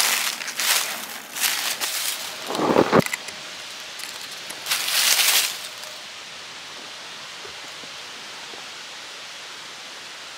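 Dry forest leaves rustling and crunching in irregular bursts, with a low gust-like thump about three seconds in. It then settles into a steady hiss of wind through the woods.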